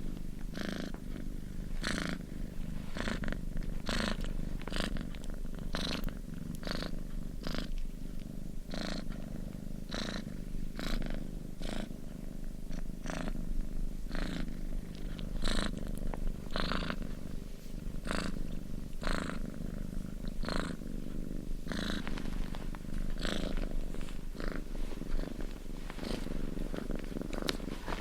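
A Chartreux cat purring steadily and continuously. The low purr rumble rises and falls with each in-breath and out-breath, a little more than one breath a second.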